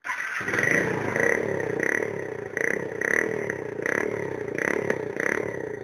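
Dafra Zig motorbike engine running through its exhaust with the protective piece removed, for a louder 'roncar' exhaust note. It starts abruptly and pulses evenly, about three swells every two seconds.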